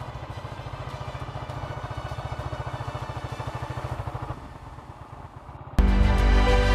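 Motorcycle engine running with an even pulsing beat, dropping off about four seconds in. Background music starts loudly near the end.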